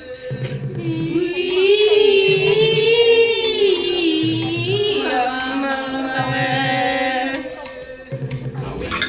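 Live band music: a sung melody with long, wavering held notes over an instrumental backing with a pulsing low beat.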